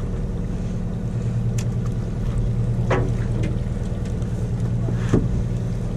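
A fishing party boat's engine running steadily, a low even hum, with a few brief faint sounds over it.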